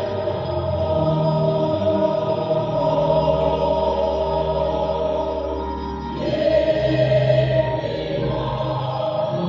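Recorded choir music: a choir singing slow, held chords over a steady bass, the chord changing every second or two, with a brief dip about six seconds in.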